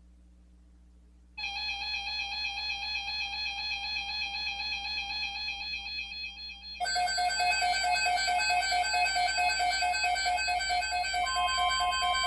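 Overlapping NOAA Weather Radio alert broadcasts for a flood watch: a warbling stream of electronic alert data tones starts about a second and a half in, a second, louder stream joins about seven seconds in, and a steady alert tone begins under them near the end.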